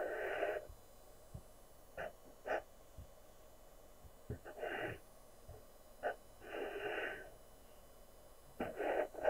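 Blackwing pencil scratching on drawing paper in short strokes: several quick flicks and a few longer lines of under a second, with pauses between them.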